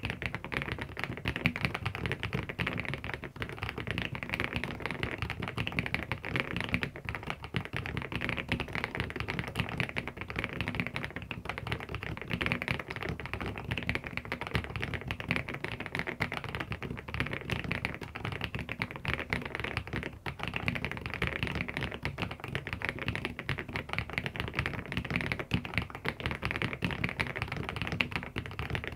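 Fast, continuous typing on a mechanical keyboard: a dense, unbroken stream of key clacks.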